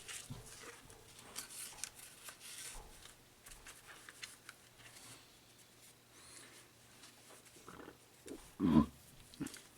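Light rustling and small clicks of paper and cardboard packaging being handled, with one louder dull thump near the end.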